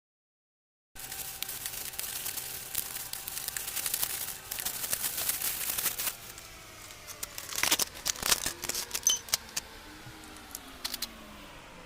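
Handling noise of small plastic parts and tools: dense clicking and rustling, then a few sharp louder clicks.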